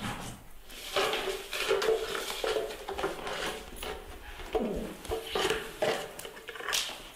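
Baby monkey and puppy wrestling: an animal whining with wavering calls, one long call about a second in and a falling call about halfway through, over scuffling and clicks on the tile floor.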